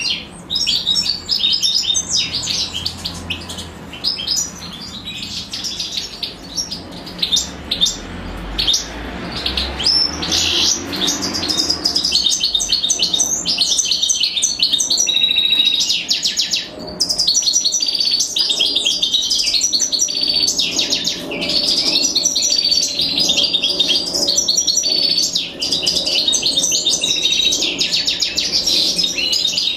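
European goldfinches chirping: a dense, unbroken twitter of high calls that grows louder and busier about twelve seconds in.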